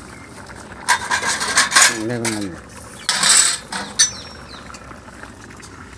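Metal spatula scraping and clanking against a kadai of thick khichuri as it is stirred. The scrapes come in two clusters, about a second in and again around three seconds in, with a sharp knock near four seconds.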